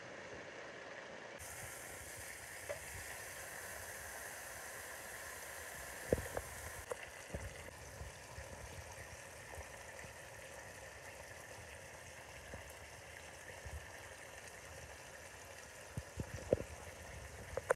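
Bacon strips frying in a pan of bubbling rendered fat, a steady sizzle. A few sharp clicks and pops stand out about six seconds in and again near the end.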